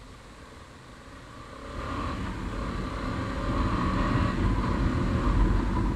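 KTM 250 Adventure's 248 cc single-cylinder engine pulling the motorcycle up from a crawl, with the engine and riding noise getting much louder about two seconds in as the bike gathers speed.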